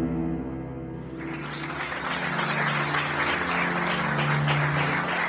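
An audience applauding, starting about a second in, over the held low notes of music that is ending.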